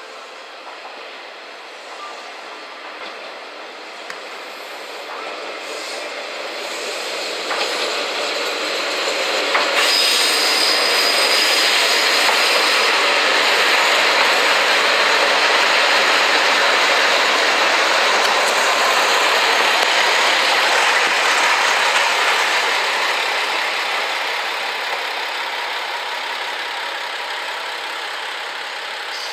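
JR West KiHa 47 series diesel railcars running into a station: the diesel engines and the wheels on the rails grow louder as the train approaches. The sound is loudest as the cars pass, with a brief high squeal about ten seconds in, then eases off as the train slows.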